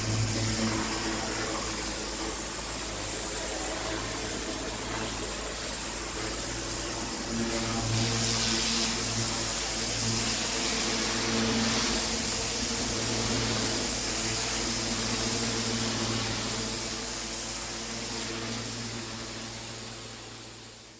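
Pressure washer running steadily, its engine humming under the hiss of the high-pressure water jet, fading out over the last few seconds.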